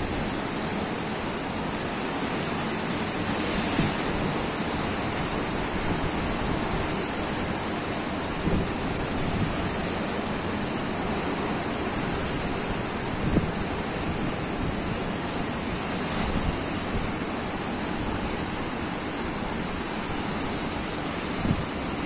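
Heavy sea surf breaking steadily over shoreline boulders, a continuous wash, with wind buffeting the microphone in a few brief low thumps.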